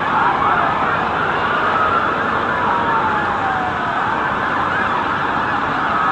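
Several emergency-vehicle sirens wailing at once, their pitches rising and falling and overlapping, over a steady background rush.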